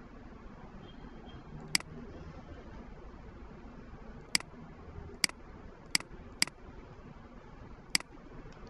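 Computer mouse clicks: six short, sharp clicks at uneven intervals over faint room hiss, as objects are picked on screen.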